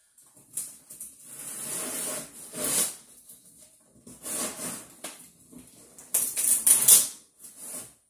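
Large cardboard shipping box being opened by hand: several bursts of tearing and scraping, the loudest about six to seven seconds in.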